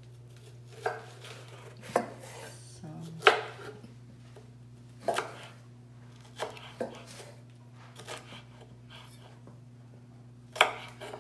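Kitchen knife chopping vegetables on a wooden cutting board: about eight sharp, irregular knocks of the blade striking the board, a second or more apart, the loudest about three seconds in.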